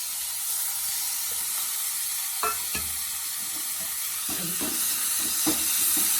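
Grated ginger sizzling in hot desi ghee in a kadhai as it is fried to brown and its water cooks off. From about the middle, stirring scrapes and knocks against the pan join in, coming faster near the end.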